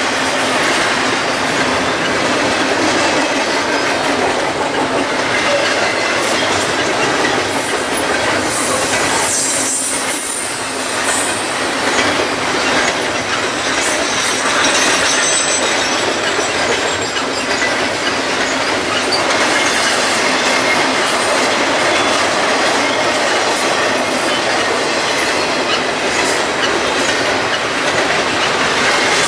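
Double-stack container freight train rolling past at speed: the steady, loud noise of the cars' wheels running on the rails, with faint high-pitched wheel squeals now and then.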